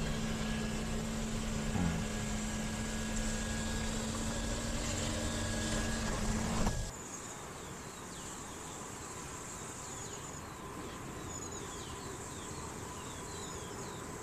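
Steady hum of the MG Astor's panoramic sunroof motor closing on a voice command, over road noise inside the moving car. About seven seconds in it cuts off abruptly and gives way to quieter outdoor ambience with repeated high, falling chirps.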